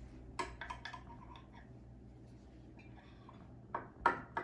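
Knife and metal spatula clicking and scraping against a baking dish while a cake is cut: a few light clicks about half a second in, and sharper knocks near the end.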